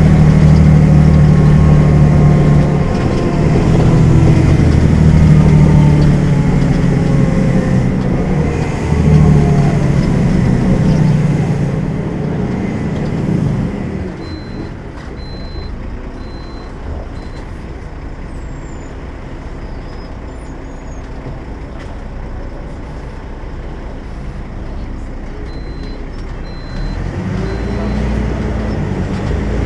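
Volvo B12M bus's 340 hp engine running hard, its pitch rising and falling for about the first 12 seconds, then easing off to a much quieter run. Two series of short, high, evenly spaced beeps sound midway and again near the end, and the engine grows louder again in the last few seconds.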